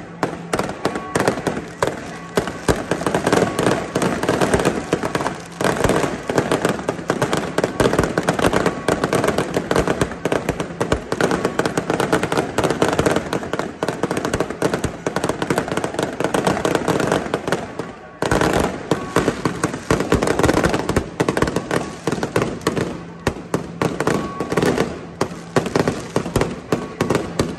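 Aerial fireworks display: a rapid, unbroken stream of bangs and crackling from shells bursting overhead, with a brief lull about two-thirds of the way through.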